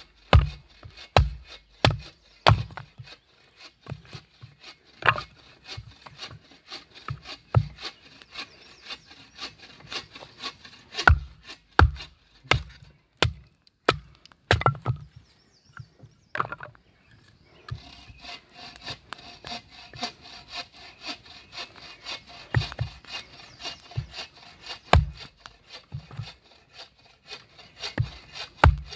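Knife batoning: a wooden baton striking the spine of a knife to split driftwood sticks into firewood, sharp wooden knocks about one or two a second with a short pause about halfway through.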